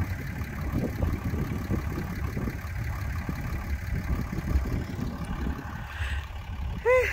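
Low, gusty rumble of wind buffeting the microphone, with a short high rising-and-falling call near the end.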